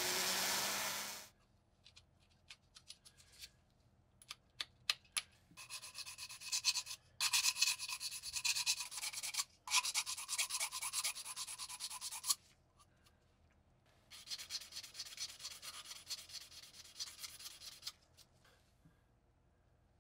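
A rotary tool's spinning wheel runs against small steel parts and stops about a second in. After a few light clicks of handled metal, abrasive paper is rubbed back and forth by hand over the threads of a steel part, in several bursts with short pauses.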